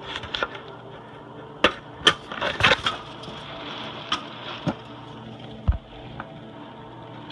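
An irregular series of sharp knocks and clicks, a quick cluster about two seconds in and a few single ones after, over a steady background hum.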